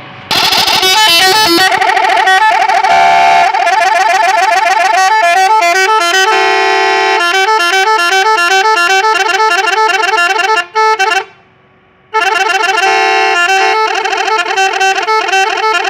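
Multi-tone telolet horn fitted to a Toyota Avanza, playing a fast melody of stepped notes. It is loud, and it breaks off for about a second around eleven seconds in, then starts again.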